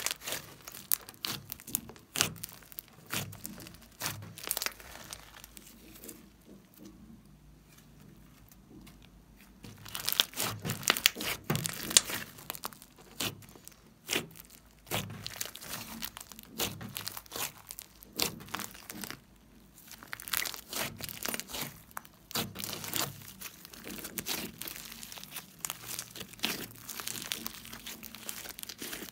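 Hands squishing, pressing and stretching a large lump of fluffy slime with foam beads: dense, irregular sticky crackles and pops of trapped air. It goes quieter for a few seconds about a quarter of the way in, then picks up again.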